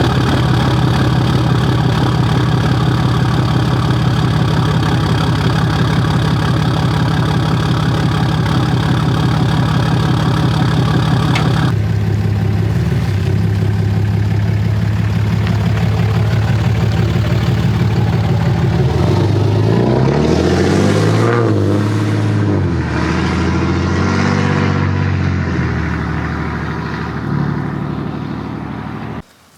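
Dodge diesel pickup engine running steadily. About halfway through its note changes, and later its pitch rises and falls several times as it revs or drives. It ends abruptly just before speech resumes.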